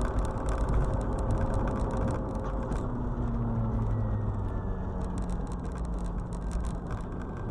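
Steady road and engine noise of a car travelling at highway speed, heard from inside the cabin.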